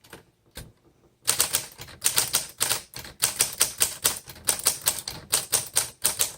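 1936 Corona Sterling flat top manual typewriter being typed on: after about a second of quiet, a quick, steady run of keystrokes starts, the typebars striking the platen several times a second.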